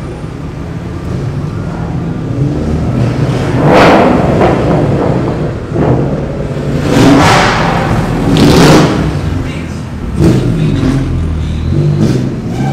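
Car engines revving as cars drive past one after another, with several loud rev surges over a low engine drone, echoing in a concrete parking garage.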